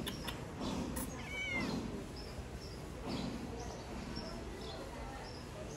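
A young cat gives one short, high meow about a second and a half in, its pitch arching up and down, over faint repeated chirps in the background.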